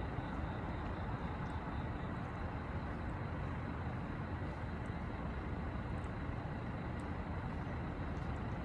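Steady low rumbling background noise of the kind made by distant traffic, with a faint thin high tone running through it and a few faint soft clicks.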